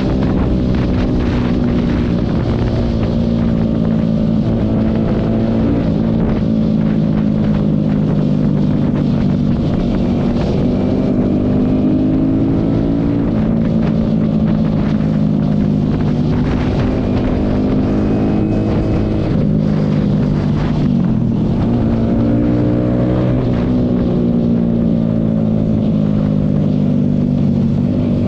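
Yamaha sports motorcycle's engine heard from on board while riding along a road, the engine note rising and falling with the throttle; it dips about two-thirds of the way through as the bike slows, then climbs again.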